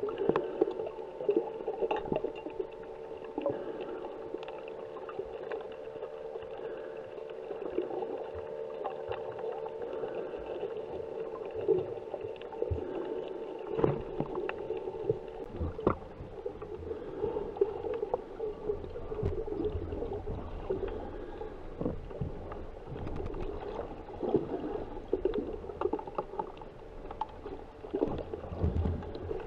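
Underwater sound picked up through a camera's waterproof housing: a steady droning hum with scattered sharp clicks, joined about halfway through by a low churning of water as the camera nears the surface.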